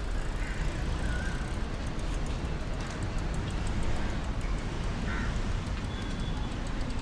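Outdoor street ambience: a steady low rumble of distant traffic, with a few short high chirps now and then.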